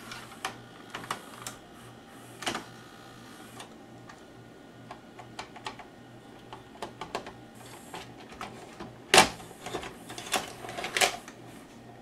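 Scattered plastic clicks and clacks from a VCR's cassette carriage as a jammed VHS tape that will not eject is worked free by hand, over a faint steady low hum. The sharpest click comes about nine seconds in, followed by a quick run of clicks a second or so later.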